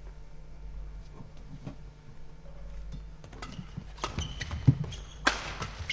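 Badminton doubles rally starting about three seconds in: rackets striking the shuttlecock in quick succession, with short high shoe squeaks on the court. A low steady hall hum runs underneath.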